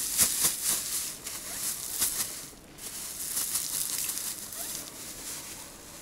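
Dried corn kernels shaken out of a plastic bag, pattering and rattling onto stones, with the bag crinkling. A dense run of small clicks, busiest in the first couple of seconds.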